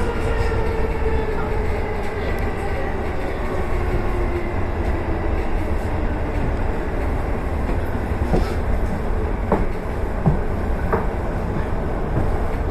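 Electric commuter train running on the rails with a steady rumble, its motor whine falling slowly in pitch in the first few seconds as it slows for a station. A few sharp clicks from the wheels over rail joints or points come near the end.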